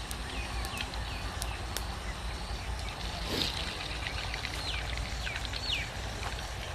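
Hot oil sizzling steadily in a karahi as spoonfuls of potato-pakora batter fry, with occasional sharp pops. Small birds chirp in short rising and falling notes, most of them in the second half.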